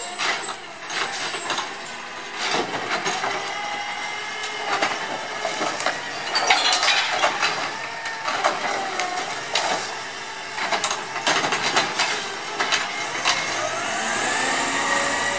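A CNG Autocar ACX garbage truck running while its Dadee Scorpion automated arm grabs, lifts and dumps a wheeled cart, with repeated clanks and bangs of the cart and arm. Near the end a pitched whine rises as the engine revs.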